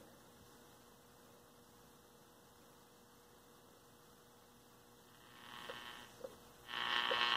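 A 1950s Bulova 300 All American Five tube radio switched on and warming up: at first only a faint steady hum from the speaker, then a couple of small clicks, and near the end the station's audio fades in and swells up loudly as the tubes reach operating temperature.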